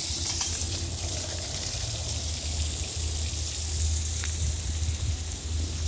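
Water hissing and gushing from a broken water pipe leaking on the house side of the meter, with a steady low hum underneath.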